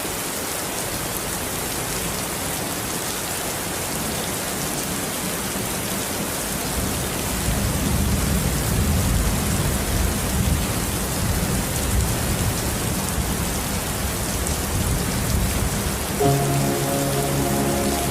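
Steady rain falling, with a low thunder rumble rolling in from about seven seconds in. Near the end, soft music with held notes comes in over the rain.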